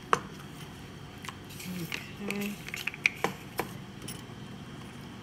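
Metal spoon stirring a thick, creamy filling in a stainless steel pan, with clinks and scrapes of metal on metal. A sharp clink comes just after the start, then several more through the middle.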